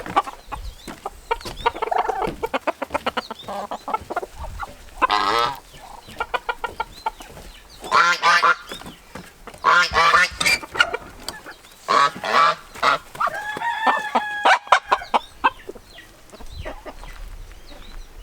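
Farmyard poultry calling: chickens clucking and loud honking calls from the flock, in several separate bouts with one longer held call near the end.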